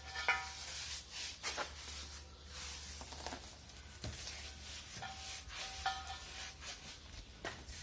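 Truck tire being worked on a steel rim with pry bars: irregular scraping and rubbing, with a few short squeaks of rubber against metal.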